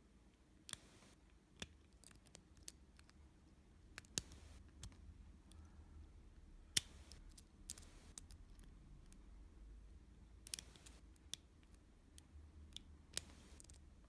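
Faint, irregular metallic clicks and light scrapes of a lock pick and tension tool working the pins of a Zone 40mm stainless steel padlock. The sharpest click comes about halfway through.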